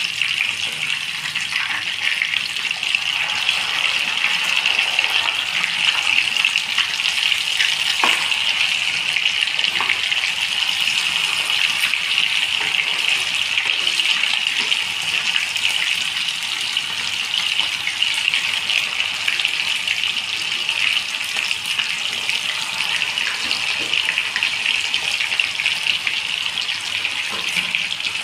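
Rohu fish steaks frying in hot oil in a pan: a steady, even sizzle, with a couple of light spatula clicks about eight and ten seconds in.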